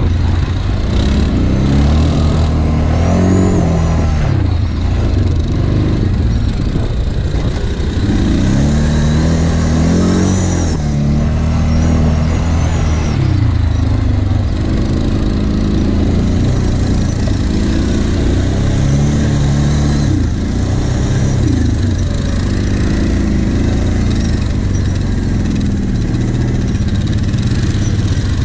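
ATV engine running under load, its pitch rising and falling again and again as the throttle is opened and eased off, over a steady low rumble.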